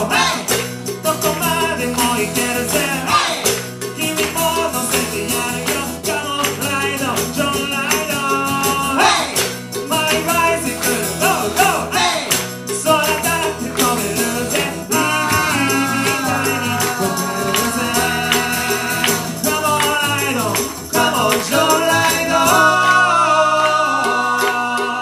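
A small acoustic band playing an upbeat song live: a male voice singing over a strummed acoustic guitar, with jingling hand percussion keeping a steady beat.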